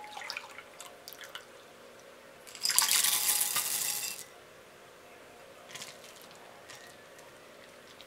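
Warm cream pouring into a glass bowl with light clinks, then dark couverture chocolate callets tipped in from a small glass cup, clattering and splashing into the cream for about a second and a half, the loudest part. A few faint clicks follow.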